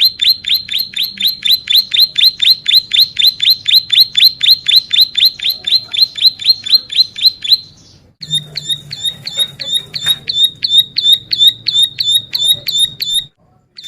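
A ciblek sawah (plain prinia) singing a long, rapid series of sharp, high repeated notes, about five a second. It breaks off for a moment about halfway through, then resumes with a slightly slower series of about four notes a second that stops shortly before the end.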